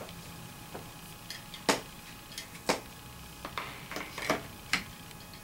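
Scattered sharp clicks and light metal taps from handling a Mossberg 535 pump shotgun as its barrel is fitted back over the magazine tube, with the magazine plug just seated in the tube. The two loudest clicks come a little under two seconds in and near three seconds in.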